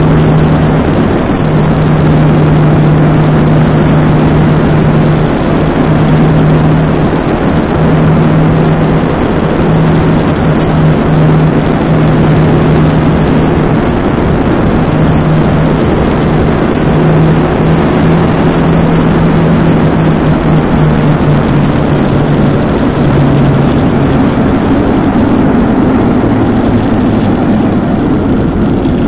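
Motorcycle on the move as picked up by its own mounted camera's microphone: a loud, steady rush of wind and road noise with a low engine hum that drops in and out.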